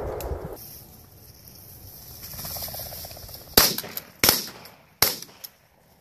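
Three shotgun shots in quick succession, the first about three and a half seconds in, each a sharp crack with a short tail.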